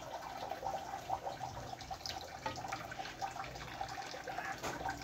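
Thick biko mixture of glutinous rice in sugary syrup bubbling and popping with many fine crackling ticks as it simmers down in a wide pan. A metal spatula stirs through it near the start.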